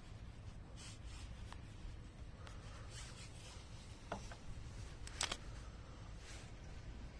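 Light handling sounds of hands working on a lift recliner's mechanism: soft rubbing and a few short clicks, the loudest a quick pair about five seconds in, over a low steady hum.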